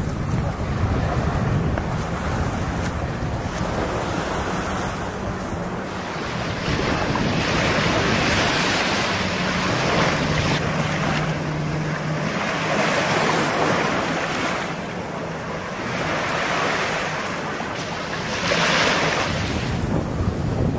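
Small waves breaking and washing up on a sandy beach, the surf swelling every few seconds, with wind buffeting the microphone. A low, steady engine drone from jet skis sits underneath in the first few seconds and again around the middle.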